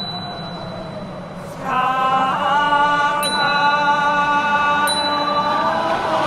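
A soft rushing hiss, then about two seconds in a voice begins a slow goeika-style chant, holding long, steady notes.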